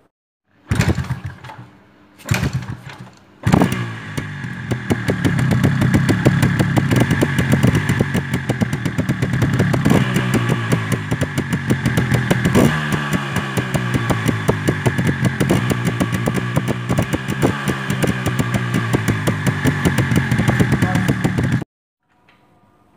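Yamaha RX 135's single-cylinder two-stroke engine: two short bursts, then it catches about three and a half seconds in and runs with a rapid pulsing exhaust note, its revs rising and falling a few times. The sound cuts off suddenly near the end.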